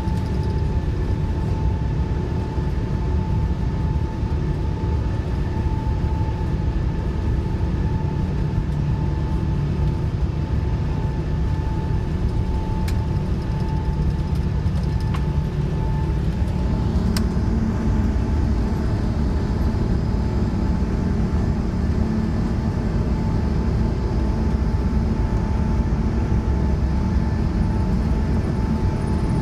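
Cabin noise inside an Air France Airbus A380 on the ground before its takeoff roll, its Engine Alliance GP7200 engines running at low power: a steady low rumble with a steady whine over it. A few faint clicks come about halfway through.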